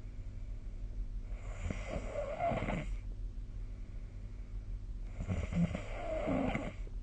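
A sleeping person snoring: two snores, each about a second and a half long, about three and a half seconds apart, over a steady low hum.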